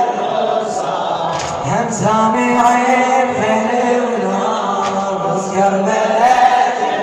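Male voices chanting in chorus in an Iraqi Shia latmiya (mourning chant), several voices layered, with long held, gliding notes.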